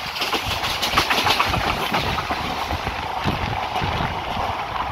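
Passenger train running, heard from a carriage window: wheels clacking irregularly over the rail joints under a steady rumble and rush of air.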